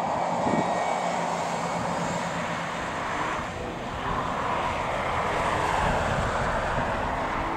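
Boeing 747-8F's four GEnx jet engines running steadily as the freighter rolls out along the runway after landing, a broad, even jet noise that hardly changes.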